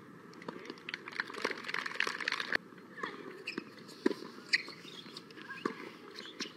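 Tennis rally on an outdoor hard court: sharp racket hits on the ball and players' footsteps. The sound changes abruptly about two and a half seconds in, and one of the loudest hits comes about four seconds in.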